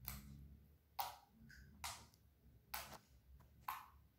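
Homemade slime of white glue, toothpaste and shampoo being pressed with the fingers against the floor, giving slime clicks: five sharp clicks, about one a second.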